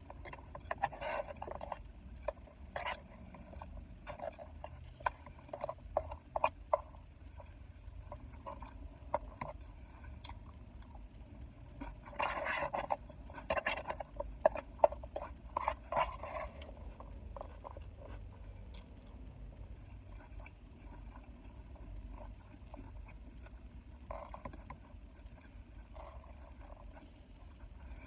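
A utensil clicking and scraping against a food container while eating, in irregular bursts, busiest near the start and again about halfway through, over a faint low steady rumble.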